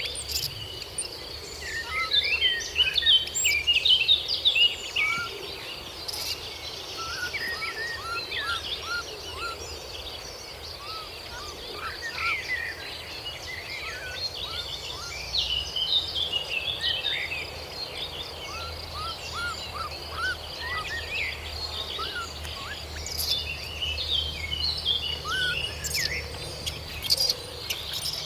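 Many birds chirping over a steady high-pitched insect drone, with a low rumble underneath; the chirping is busiest a few seconds in and again near the end.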